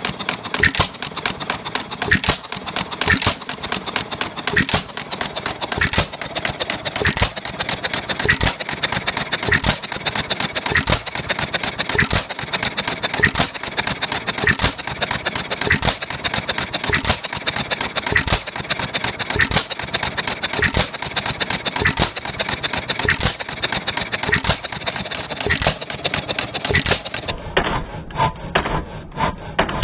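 Monarch single-cylinder antique stationary gas engine running, with regular sharp bangs between one and two a second and lighter clicks in between.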